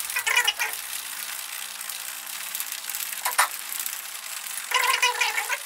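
Shaker cup of energy-drink powder and water being shaken steadily to mix it: a continuous, unbroken sloshing noise.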